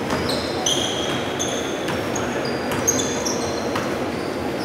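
Basketball shoes squeaking on a hardwood gym floor, a dozen or so short high chirps as players run and cut, with a few ball bounces.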